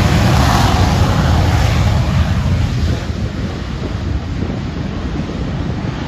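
AV-8B Harrier II's Pegasus vectored-thrust turbofan at full takeoff power during a short takeoff, a loud, deep rushing jet noise that eases somewhat about three seconds in as the jet leaves the runway.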